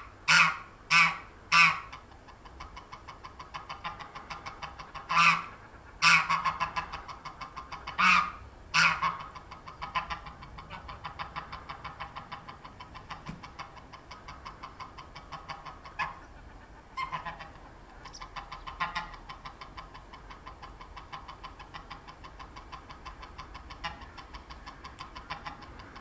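Greylag geese honking: a quick series of loud honks at the start, more about five to nine seconds in, then fainter calls, over a steady fast chatter.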